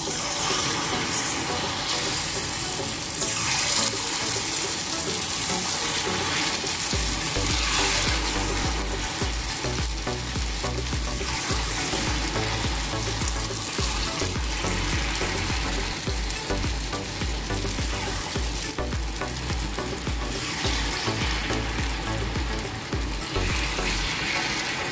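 Wheat-flour bonda batter deep-frying in hot oil: a steady sizzle. A low rumble joins about seven seconds in.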